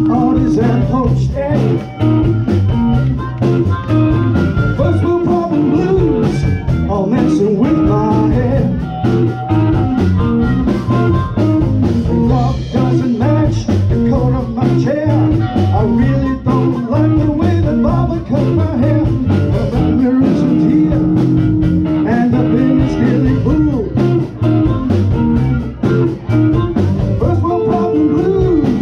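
Live blues-rock band playing a blues number: electric guitars, bass and drums with a vocalist singing.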